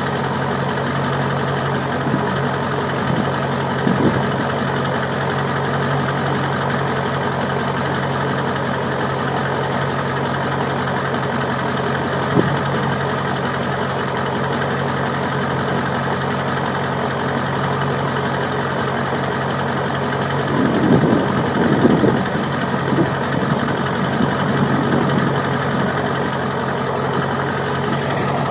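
Car engine idling steadily, with a few short knocks and a brief run of irregular clunks about two-thirds of the way through.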